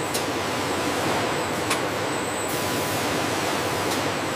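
Production-line machinery running with a steady, even hiss and hum, with a few faint clicks.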